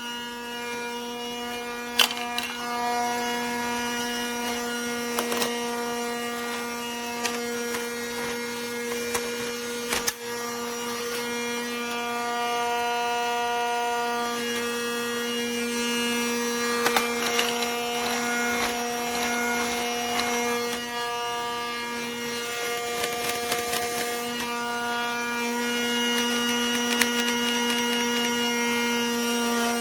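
Small battery-powered electric motor running with a steady hum that shifts slightly in pitch now and then, with a few sharp clicks.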